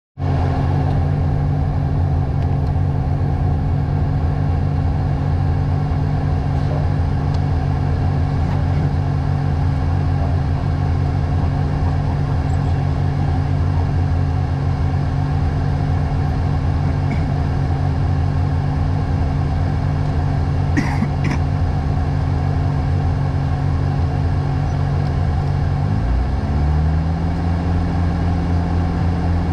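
VAZ 2105 rally car's four-cylinder engine idling steadily while waiting at the stage start. About 26 seconds in, the revs rise a little and are held at the higher speed.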